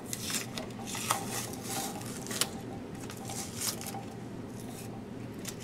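Blue painter's tape being peeled off a metal amplifier chassis and crumpled by hand, giving an irregular crinkling with scattered small sharp ticks.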